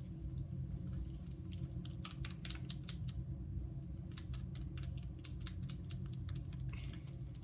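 A run of light, irregular clicks and taps from handling, over a steady low hum.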